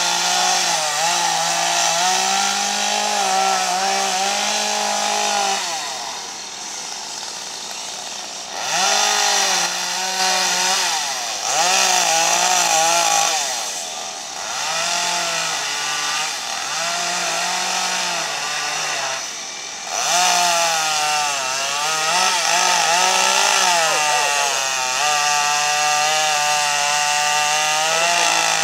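Two-stroke gas chainsaw carving into a wooden eagle sculpture. It revs up and down as it cuts and falls back to idle several times between cuts.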